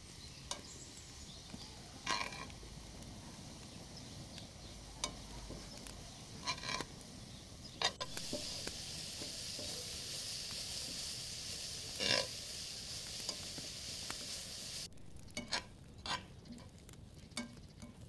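Chopped greens sizzling and steaming in a pot on a wood-fired stove while being stirred with a wooden spoon, with a few knocks of the spoon against the pot. The sizzling hiss is loudest for several seconds in the middle and cuts off suddenly.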